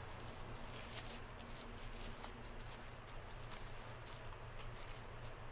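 Faint rustling and crinkling of packaging being handled as a gift bag is opened, with scattered small ticks and a low steady hum underneath.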